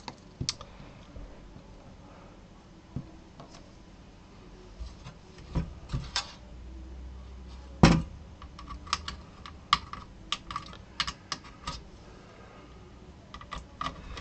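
Scattered light clicks and taps of hands, a screwdriver and small screws on the sheet-metal chassis of an opened LCD monitor during reassembly, with one loud knock about eight seconds in as the metal chassis is shifted on the bench.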